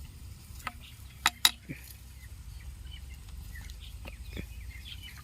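A few sharp clicks and knocks of hard parts being handled as a disassembled ball valve is checked, the two loudest close together about a second and a half in. Faint bird chirps sound in the background.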